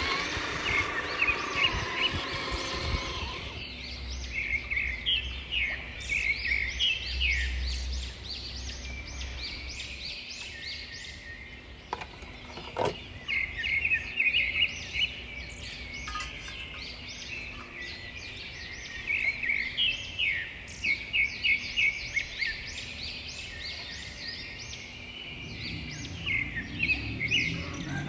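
Small birds chirping: many short, quick chirps overlapping, starting about three seconds in and going on with brief pauses. Before that, a steady motor-like hum with a few pitched tones stops about three seconds in.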